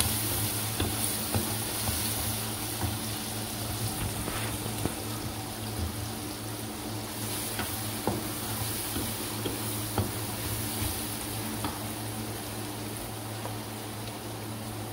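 Sliced onions sizzling in hot oil in a wok, with the spatula now and then scraping and clicking against the pan as they are stirred. A steady low hum runs beneath.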